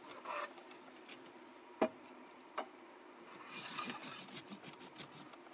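Metal camp cookware being handled: a sharp clink a little under two seconds in, a lighter clink shortly after, and a brief scrape of metal on metal around four seconds in, as a mess tin is shifted on a small stove.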